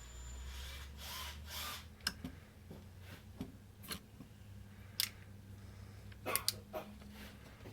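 Small objects being handled at a work area: rustling around a second in, then a series of sharp clicks and taps, with a cluster of them near the end, over a low steady hum.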